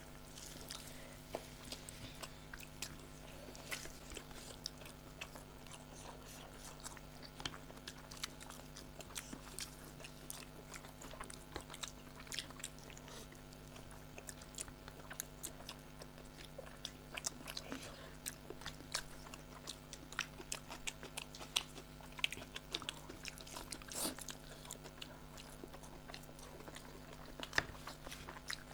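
Close-miked eating of rice pulao and chicken curry: chewing, lip smacks and scattered small clicks, over a steady low hum.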